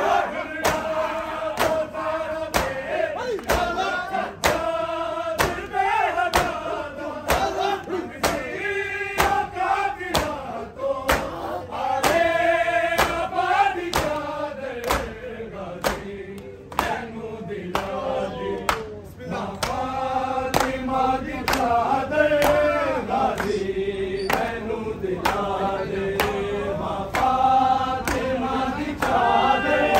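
A group of men chanting a noha together, over the steady beat of matam: hands striking chests in time with the chant.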